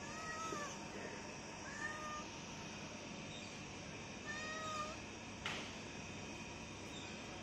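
Domestic tabby cat meowing three times, short mews that rise and fall in pitch, calling to be fed. A brief rustle about five seconds in.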